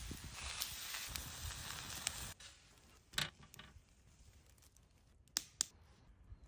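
Beef burger patty sizzling on a hot stone slab as a cheese slice is laid on. The sizzle cuts off about two seconds in, followed by a few short clicks and taps as the burger is stacked with lettuce, tomato and sauce.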